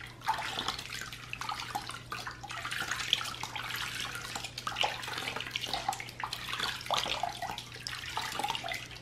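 Water splashing and trickling in a plastic basin as a hand scoops it up and pours it over a newborn's head to rinse her hair, with water dripping back from the hair into the basin in short, irregular splashes.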